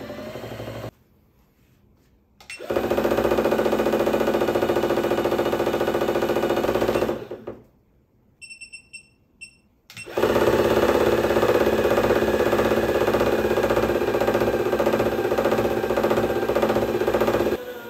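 Saxophone-playing dancing sunflower toy overdriven from a bench DC power supply at 25 to 30 volts, giving out a loud, harsh, distorted, jackhammer-like racket in two long stretches with a short break between. In the break, a few short electronic beeps as the power supply's buttons are pressed.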